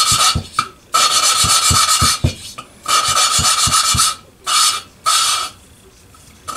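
Kohler KT17 valve being lapped into its seat with grinding compound, the suction-cup lapping stick spun back and forth between the palms: about five gritty rasping strokes of metal grinding on metal, with a slight ring to each, falling quiet for the last second.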